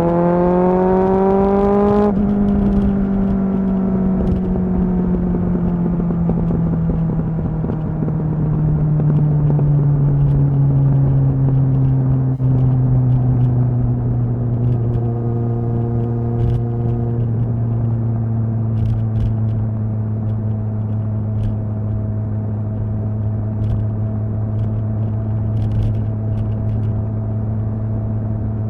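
Kawasaki ZXR's inline-four engine under way: the revs climb for about the first two seconds, then the note drops and falls slowly as the bike runs down in speed, levelling off to a steady cruise over the last ten seconds or so.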